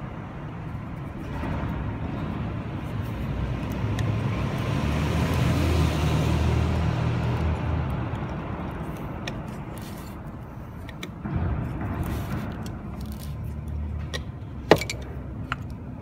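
A motor vehicle's engine rumble that swells to a peak midway, fades, and swells again, with small clicks and one sharp click near the end.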